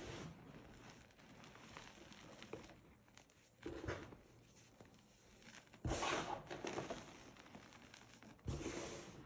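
Hands digging into and squeezing a heap of crushed gym chalk: soft crunching and rustling of powder and crumbs, with three louder crunches at about four, six and eight and a half seconds in.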